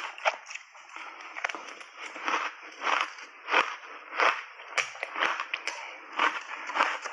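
Shaved ice topped with matcha powder and milk cream being chewed, a close run of crisp crunches at about one or two a second.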